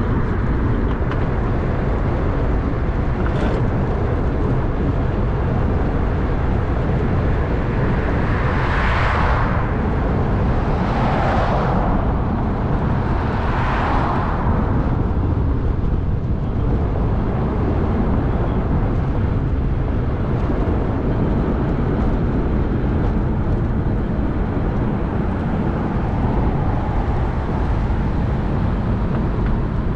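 Steady rumble of wind and road noise on a camera riding on the nose of a moving velomobile. About a third of the way in, three vehicles whoosh past a couple of seconds apart.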